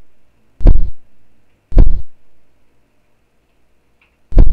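Three loud, deep thuds, each dying away quickly: two about a second apart, then a third near the end after a longer pause.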